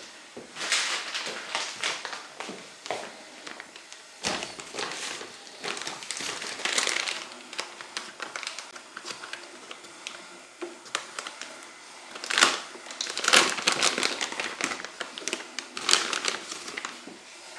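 Thin plastic bag crinkling and rustling as hands untwist its wire tie and open it, with irregular crackles and a few louder crinkles in the second half.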